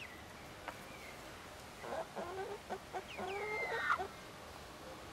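Sussex hens clucking in two short bouts, about two seconds in and again just after three seconds.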